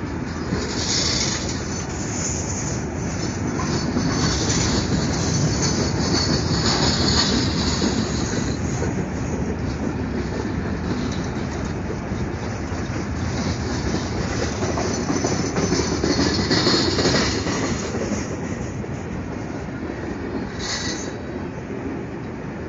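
Freight train cars rolling past close by: a steady rumble of wheels on rail with high-pitched wheel squeal that comes and goes several times, strongest in the first third and again about three quarters of the way in, the rumble easing off near the end.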